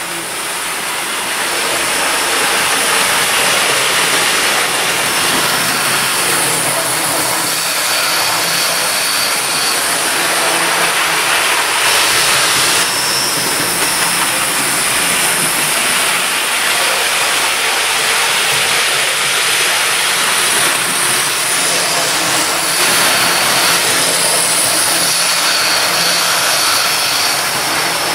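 A train running: steady rumbling, hissing noise with no clear rhythm.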